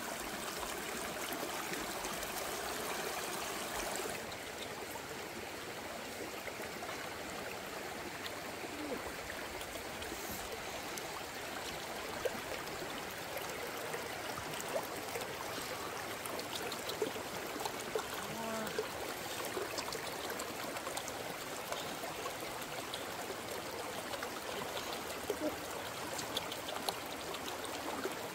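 River water running steadily, with a few faint clicks and taps in the second half.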